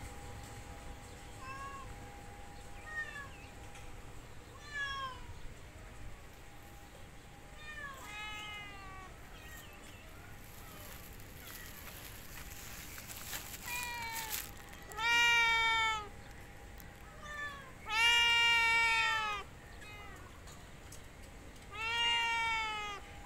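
Cat meows: a string of soft, short meows over the first eight seconds or so, then three long, loud meows about fifteen, eighteen and twenty-two seconds in.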